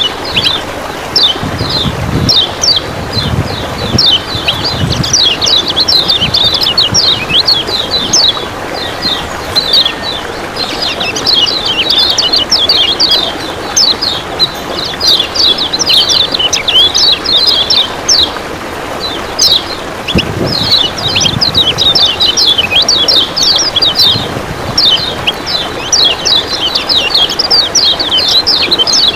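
Kecial kuning white-eye singing a fast, unbroken run of high chirps, the 'ciak ciak' masteran song. It plays over a steady rush of running water.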